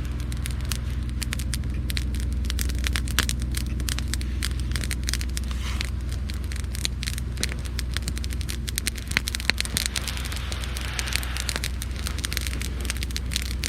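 Young campfire of dry twigs, branches and driftwood crackling with frequent sharp, irregular pops, over a steady low rumble. The fire has just caught and is still building up.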